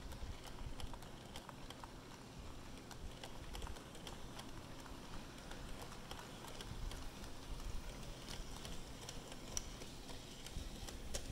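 OO gauge model train running past: its wheels give irregular light clicks over the track, over a low rumble of the train rolling along, with the Hornby Merchant Navy class locomotive at the rear going by.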